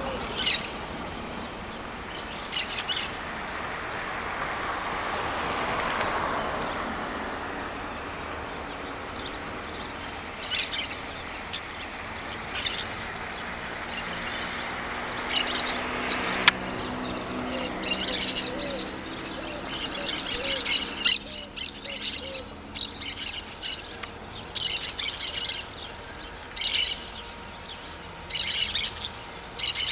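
Wild birds chirping, short clusters of high chirps every second or two, coming more often in the second half.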